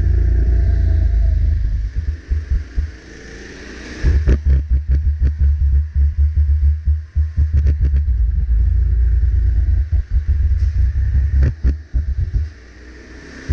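Onboard sound of a two-seater go-kart's 270 cc single-cylinder four-stroke engine running hard, a heavy low rumble that drops away twice as the throttle comes off. Quick knocks and rattles from the kart run through the middle.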